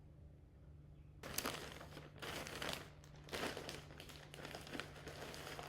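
Packaging crinkling and rustling as it is handled and opened, in several bursts starting about a second in.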